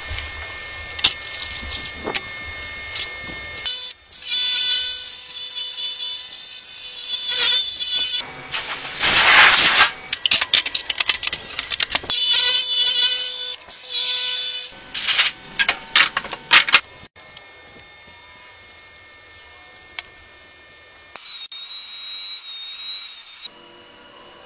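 Woodworking power tools cutting wood in a series of loud stretches, each a steady whine over a rushing noise, starting and stopping abruptly. Quieter stretches in between hold light handling of the work.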